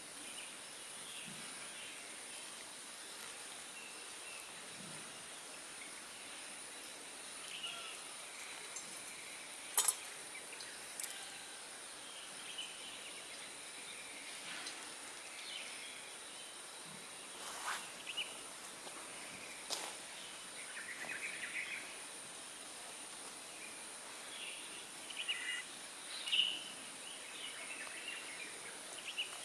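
Steady high-pitched insect drone with scattered faint bird chirps, broken by a few sharp clicks, the loudest about a third of the way in.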